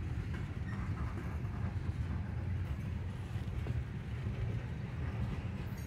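Freight train of covered hopper cars rolling past on the rails: a steady low rumble of wheels and trucks.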